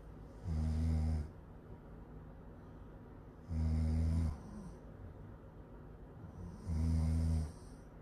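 A sleeping woman snoring: three low snores about three seconds apart, each lasting a little under a second.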